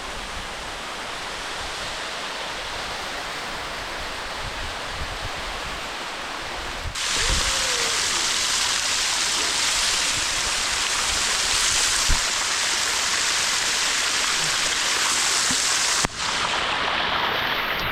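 A waterfall running after rain: a steady rush of falling water. It turns abruptly louder and brighter about seven seconds in and breaks off briefly near the end.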